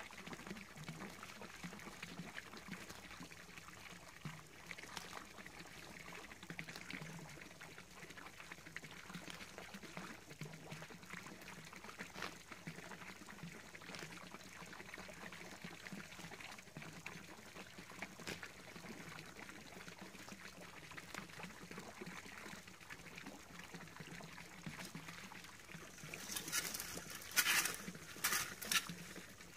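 Small garden-pond fountain splashing and trickling steadily. Near the end, several loud scrapes of a rake dragged through dead leaves and soil.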